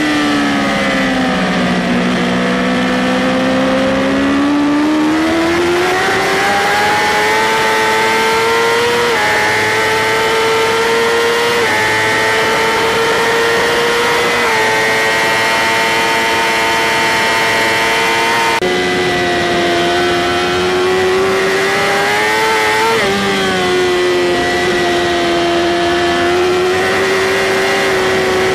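BMW S1000RR superbike's inline-four engine heard onboard at racing speed, with wind rush over the camera. The revs fall as it slows, then climb through the gears and hold high with brief steps at the shifts. Partway through, the sound cuts abruptly to another stretch of fast running.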